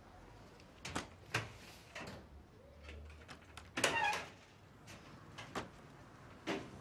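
Glass-paneled door being handled and pushed: a series of separate sharp clacks and knocks, with a short squeak in a louder cluster about four seconds in.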